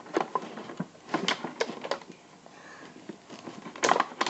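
Plastic toy packaging being handled and pulled open: a run of sharp clicks and crackles, quieter for about a second in the middle, then louder near the end.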